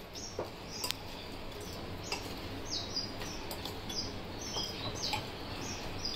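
Small birds chirping over and over in short, high, falling notes, with a few light clinks of a metal spoon against a ceramic bowl as fried taro pieces are tossed in dry spice mix.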